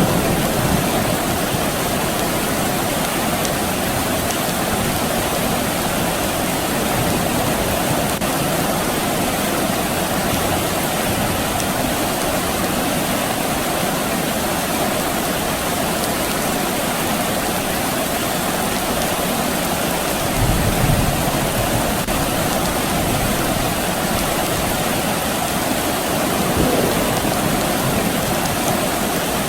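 Steady soft rain falling, an even hiss that holds level throughout. About two-thirds of the way in comes a brief low rumble, with a smaller one a few seconds later.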